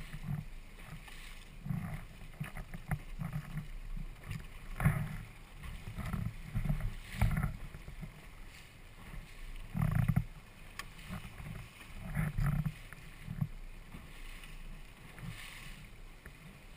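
Wind buffeting the microphone in irregular low gusts on a small sailing boat, with water splashing against the hull now and then.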